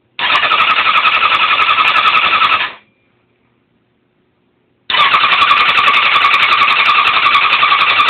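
Motorcycle electric starter cranking the engine in two long attempts with a pause between, the engine turning over rapidly but not catching: a bike that won't start.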